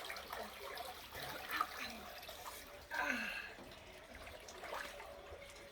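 Light sloshing and dripping of pool water, in scattered small splashes and drips, with a short breathy vocal sound about three seconds in.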